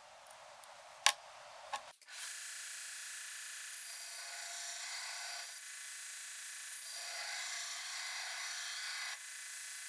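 A sharp click about a second in, then a belt grinder running with a steel cleaver blade held against its abrasive belt: a steady grinding hiss that starts suddenly and swells and eases a little with each pass of the blade.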